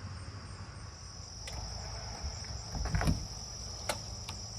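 Insects, crickets or katydids, trilling in a steady high-pitched chorus. There are a few light clicks, and a dull knock about three seconds in.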